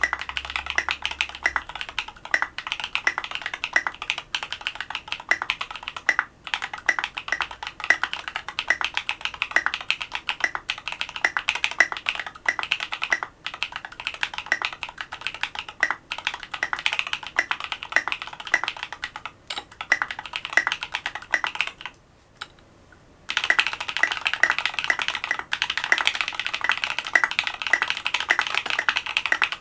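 Fast, continuous typing on a Duck Orion V3 custom mechanical keyboard with lubed Invyr Holy Panda tactile switches on an FR4 plate, capped with SA-profile Oblivion keycaps. The typing stops for about a second roughly three quarters of the way in, then starts again.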